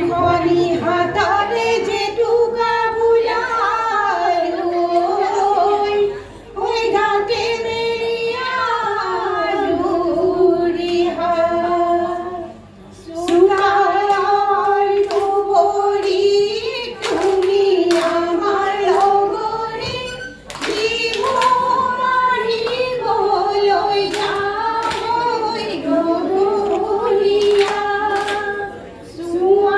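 Women singing a Jeng Bihu folk song together into microphones, the melody coming in long phrases with short breaks for breath every six to eight seconds. Scattered hand claps sound now and then.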